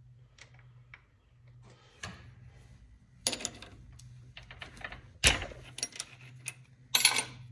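A few sharp metallic clunks and rattles from a small Chinese multi-purpose lathe as its levers are worked by hand to disengage the thread feed. The loudest knock comes about five seconds in, with lighter ticks between.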